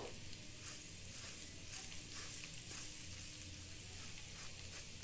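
Faint soft patter of puffed rice grains pouring from a steel bowl into a glass bowl of water, with scattered light ticks over a low steady hum.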